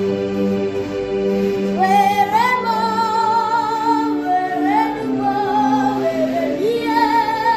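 Gospel song: a solo female voice enters about two seconds in, singing long held notes with vibrato over a steady sustained instrumental accompaniment.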